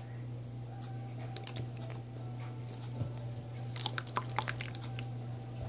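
Toy slime being squeezed and worked in the hand: faint, scattered wet squelches and small clicking pops, a cluster of them around four seconds in.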